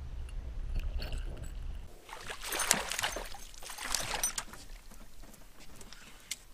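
Low water rumble heard through an underwater camera, then about two seconds in a hooked chain pickerel splashing at the surface beside the boat for a couple of seconds as it is reeled in.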